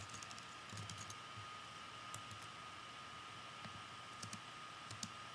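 Faint typing on a computer keyboard in the first second or so, then a few separate key or mouse clicks, over a faint steady whine.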